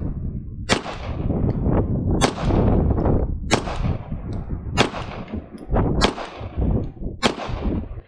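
Shadow Systems DR920 9mm pistol fired in slow aimed fire: six sharp shots about a second and a quarter apart, with a couple of fainter reports between them.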